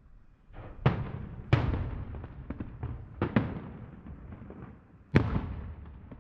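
Aerial fireworks shells bursting: four sharp bangs, each trailing off in a rolling echo, with smaller crackling pops between them.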